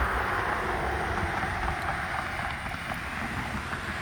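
Loaded International dump truck driving past: steady engine and tyre rumble, loudest at the start and slowly fading as it moves away.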